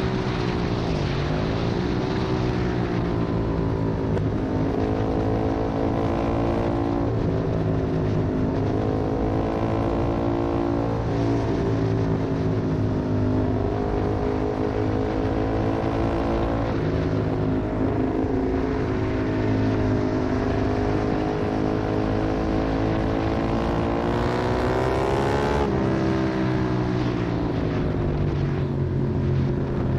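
Sport motorcycle engine at racing speed, heard from onboard. Its revs climb and drop back again and again through gear changes and corner entries, with one long climb to high revs near the end before falling away.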